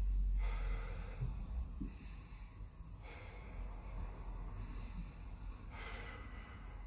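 A man breathing slowly and audibly while holding a plank: a few long, noisy breaths in through the nose and out through the mouth.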